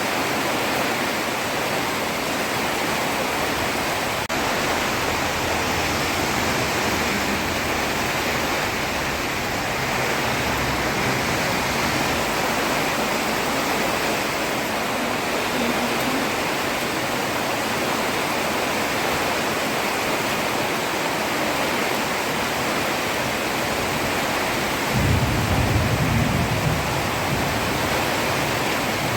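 Heavy rain falling steadily on a road, a continuous even hiss. A single faint click comes about four seconds in, and a brief low rumble swells for about two seconds near the end.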